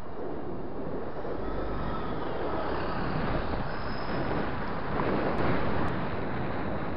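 Wind noise on the microphone of a camera on a road bike at riding speed, a steady rush that swells about five seconds in, with oncoming traffic passing.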